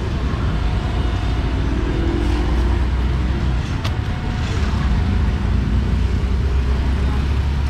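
Street traffic: motor vehicles running by with a steady low hum, and a single sharp click about four seconds in.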